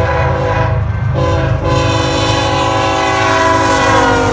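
BNSF freight locomotive's air horn sounding a multi-note chord over the low rumble of the train. The chord shifts about a second in and slides down in pitch near the end as the locomotive passes.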